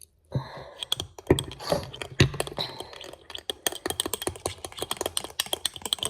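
Rapid, irregular light clicks and taps, with a few louder knocks in the first couple of seconds.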